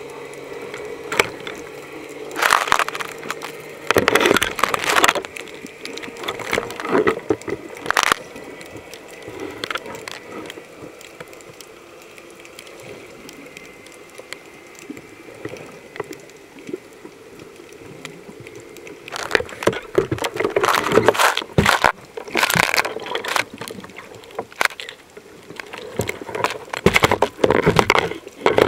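Water heard from underwater by a submerged camera: irregular gurgling, bubbling rushes and sloshes, busiest in the last third, over a faint steady hum during the first half.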